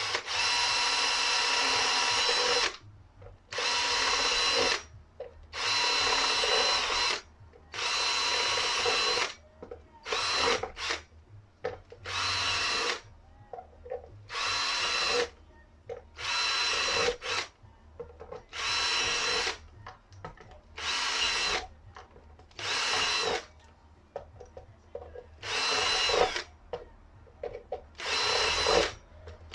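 Power drill drilling holes, run in about fourteen bursts of one to two and a half seconds with short pauses between, each at a steady pitch.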